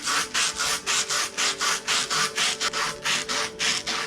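Skateboard grip tape used as sandpaper, rubbed quickly back and forth, about five scratchy strokes a second, to take the top surface off so the heated grip will slide over the bar. A faint steady hum lies underneath.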